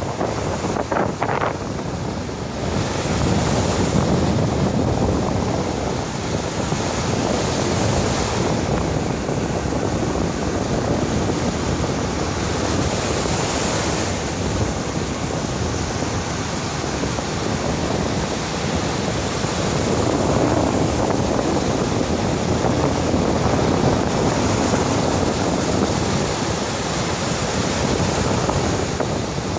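Sea waves breaking and rushing on the shore in strong wind, with wind rumbling on the microphone. The surf swells and eases in long surges.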